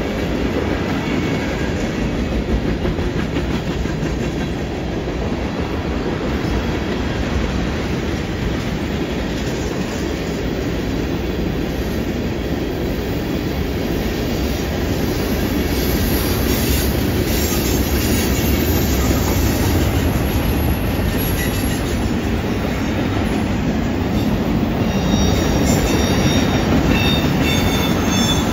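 Freight train tank cars rolling past on a curve: a steady rumble and clatter of steel wheels on the rails. Thin, high-pitched wheel squeal comes in near the end.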